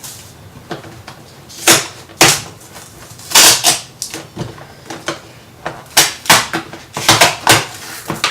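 Stiff plastic blister packaging being cut and pried open by hand, giving irregular crackles and sharp snaps.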